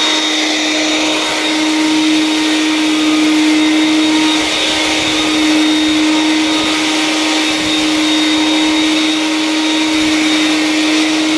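Vax 221 wet/dry canister vacuum's two-stage motor running steadily in dry mode: a continuous rush of air with a steady hum and a thin high whine over it.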